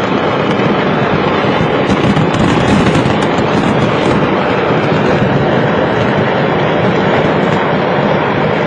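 Stocks of fireworks going off together in a loud, unbroken crackle of rapid bangs.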